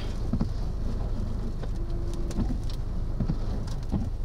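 Tornado winds buffeting a vehicle: a low steady rumble, with scattered ticks of blown dirt striking it.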